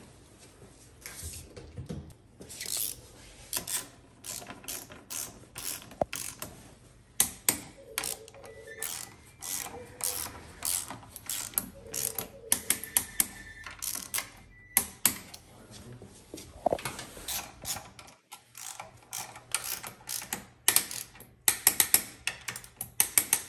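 Socket ratchet wrench clicking in quick runs of strokes, with short pauses between runs, as bolts on a motorcycle's front fork leg and wheel are tightened.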